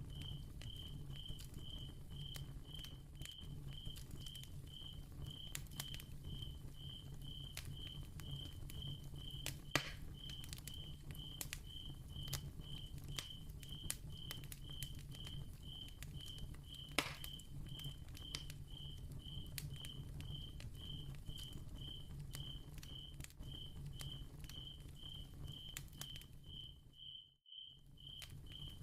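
Ambience of a crackling candle flame: scattered soft crackles and pops, two of them louder, over a faint low hum, with a steady high chirp repeating about twice a second. The sound drops out briefly near the end.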